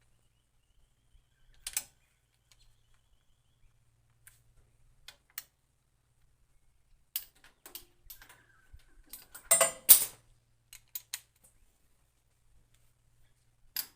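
Click-type torque wrench and socket tightening cylinder head bolts on a Ford 3000 tractor during the final 110 torque stage. There are scattered ratchet clicks and metal clinks, with a louder burst of metallic clatter about ten seconds in.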